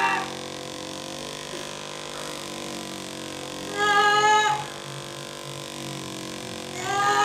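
Percussion massage gun running against the back of the thigh: a steady motor hum with fast low pulsing, which twice swells into a louder, higher whine, about four seconds in and near the end.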